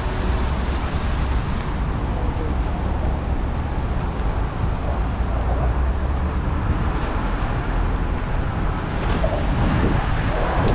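Steady rainy city-street ambience: a constant hiss of rain and traffic, with a low wind rumble on the microphone.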